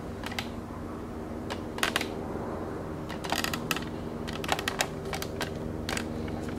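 Scattered light clicks and taps, some in short clusters, over a steady low hum.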